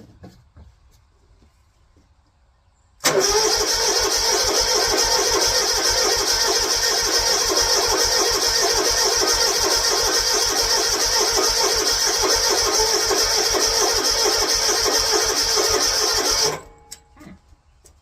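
Snapper Pro walk-behind mower engine starting on its first start of the season: it catches at once about three seconds in, runs loud and steady for about thirteen seconds, then is shut off abruptly.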